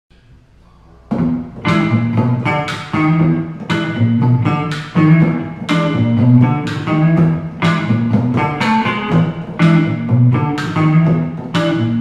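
Acoustic and electric guitars playing a song intro together, chords picked and strummed in a steady pattern, starting about a second in.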